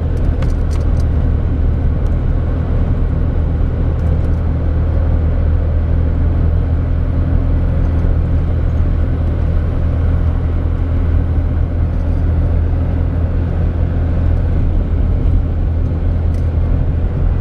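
Steady low drone of engine and road noise inside a moving four-wheel-drive vehicle's cabin, even throughout.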